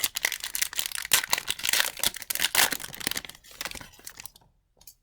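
Hockey card pack's foil wrapper being torn open and crinkled: dense crackling that fades and stops about four and a half seconds in.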